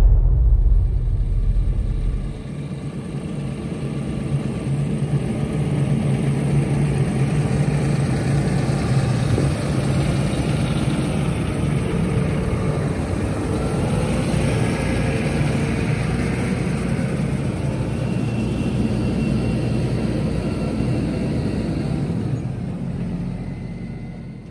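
An engine running steadily with a low hum, fading out near the end.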